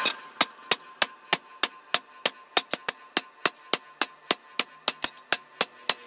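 Hand hammer striking the red-hot tip of a steel crowbar on an anvil, forging it: a steady run of sharp, ringing metal blows, about three a second.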